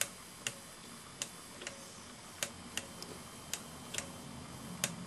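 Light, sharp clicks from the plastic cassette-deck mechanism of a Sony CFD-110, about a dozen at uneven spacing, roughly one every half second.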